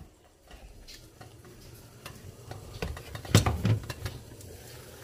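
Cookware being handled on a stove: light clinks and clicks, then a louder clatter of metal and glass about three and a half seconds in as a glass pot lid is handled, over a faint steady low background.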